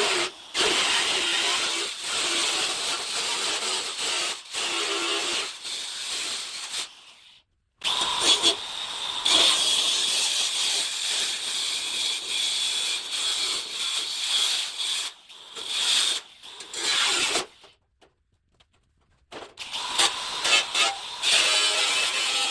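Power tool cutting through the rusted sheet metal of a truck's quarter panel, a harsh hissing and squealing noise that stops and starts a few times.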